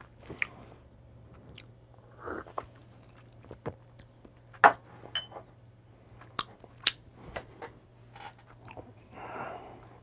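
Quiet mouth sounds of tasting espresso: scattered lip smacks and tongue clicks close to a clip-on mic, with a small glass cup set down on the table around six seconds in and a short breath near the end.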